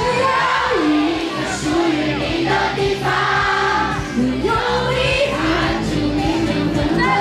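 Live pop song over a concert sound system: a woman sings held, gliding notes over a full band.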